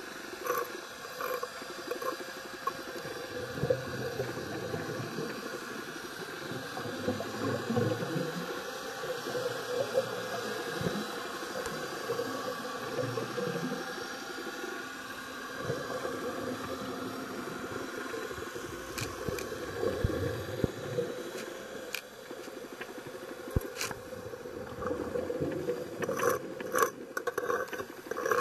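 Underwater noise around working scuba divers: rumbling swells of regulator bubbles every few seconds over a steady hiss. Sharp clicks and knocks come more often near the end, from the sampling frame and scraper.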